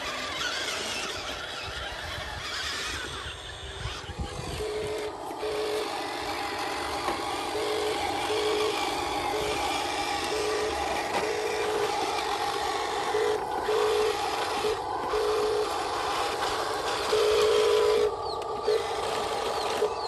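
Radio-controlled toy trucks driving, their small electric motors and plastic gearboxes whining. The whine switches on and off in short pulses as the throttle is worked, and is loudest near the end.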